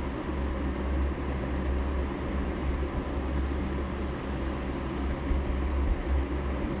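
A steady low rumble with a hiss over it: constant background noise with no clear events.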